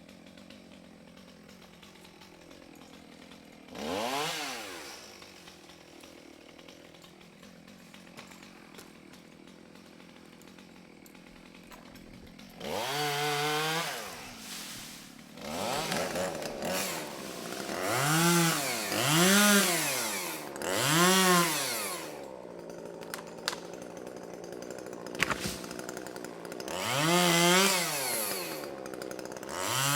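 Chainsaw running at idle and being revved up and down again and again, its engine note rising and falling with each rev. There are several quick revs in a row around the middle.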